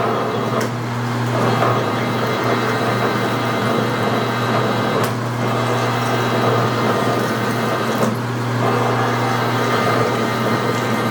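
Metal lathe running steadily while a 2-1/2 inch drill cuts into a solid cold rolled steel blank: a constant motor hum under a noisy cutting sound, with a few faint ticks.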